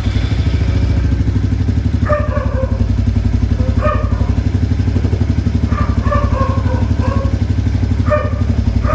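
Royal Enfield Classic 350 single-cylinder engine idling on its centre stand, just started, with a steady, even beat.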